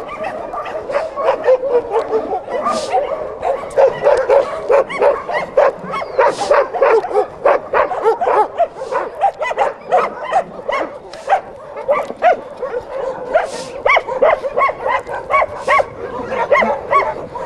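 A pack of shelter dogs barking and yelping at once, many overlapping calls with no let-up.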